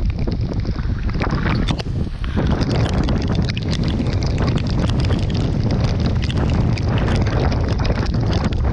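Strong squall wind blasting over the microphone on a small sailboat's deck: a loud, steady low roar with many sharp crackles and slaps mixed through it.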